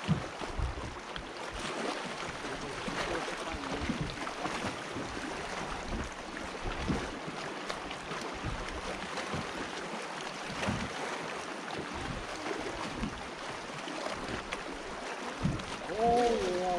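Water lapping against a fishing kayak's hull, with scattered low thumps.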